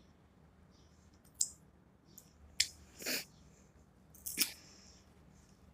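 Close-up eating sounds: four short, sharp clicks and crackles about a second apart while chewing, the third a slightly longer, fuller crunch.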